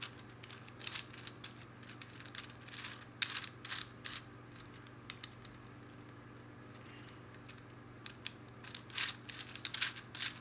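Meffert's Gear Ball, a plastic twisty puzzle, being turned by hand: irregular runs of small plastic clicks as its gears mesh. The clicks come in spurts, with a quieter pause of a few seconds in the middle.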